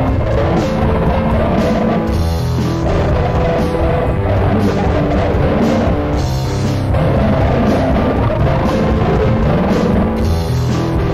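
Loud, continuous rock-style music: a drum kit beating steadily under held, chord-like pitched notes.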